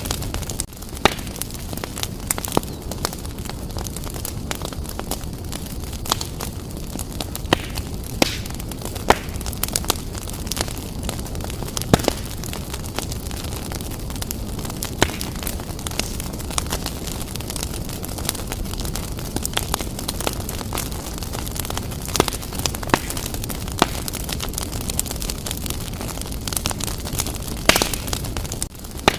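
Wood fire burning vigorously in a fireplace: a steady low rumble of flames with sharp crackles and pops from the burning logs at irregular intervals.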